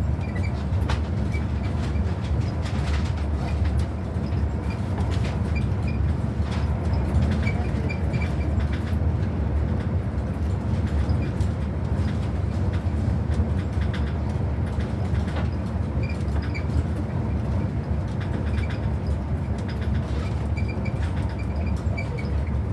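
Train running on rails: a steady low rumble with scattered clicks and brief high-pitched squeals.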